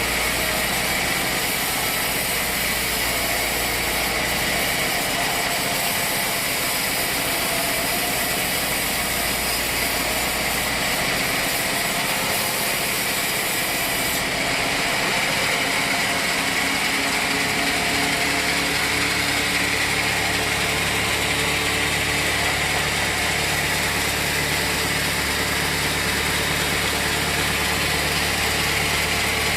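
Sawmill machinery running steadily: a constant mechanical drone with a bright hiss on top. About halfway through, the highest part of the hiss drops away, and a few seconds later the low hum changes pitch.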